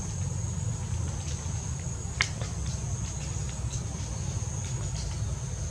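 Insects buzzing in a steady high-pitched tone, over a low rumble of wind on the microphone, with scattered faint clicks and one sharp click a little after two seconds in.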